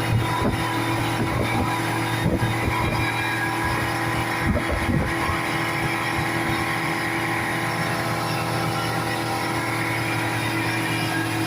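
Speedboat engine running steadily at speed, with wind and water noise and a few low thumps.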